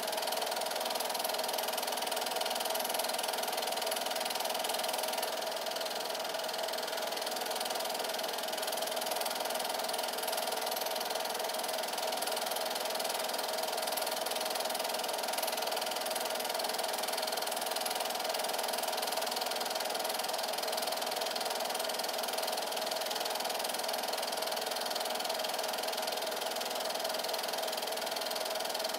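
8mm film projector running steadily, a constant mechanical noise of its motor and film transport under a silent film.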